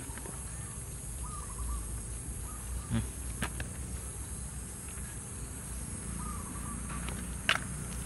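Hands scraping and rustling through crumbly rotten wood and soil, with a few short sharp clicks, the loudest near the end. A steady high insect drone runs underneath.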